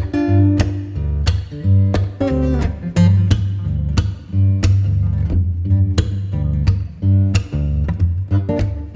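Background music: plucked and strummed guitar over a steady bass.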